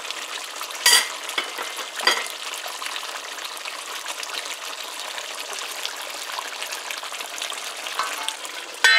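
Duck curry sizzling and crackling in a pot on the stove as its sauce cooks down and dries out. Two sharp knocks, about a second and two seconds in.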